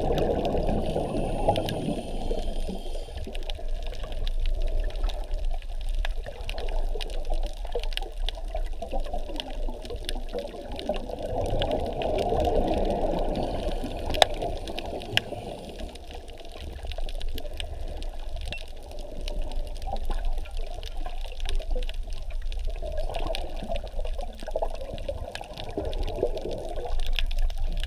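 Muffled underwater sound: water rushing past and surges of air bubbles as a diver exhales, with a few sharp clicks.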